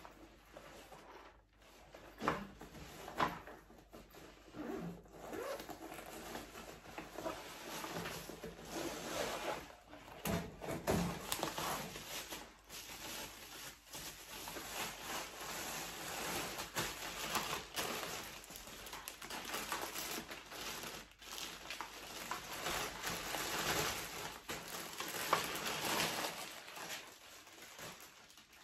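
Unpacking by hand: a nylon carry bag is unzipped, then crinkly plastic wrapping is rustled, crumpled and pulled off a tripod, giving irregular rustling and crackling with scattered clicks and tearing.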